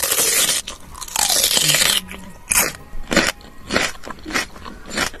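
Fizzy soda being poured from a large plastic bottle into a glass: a loud fizzing hiss in two longer pours, the second about a second long, then several short bursts of fizz and crackle.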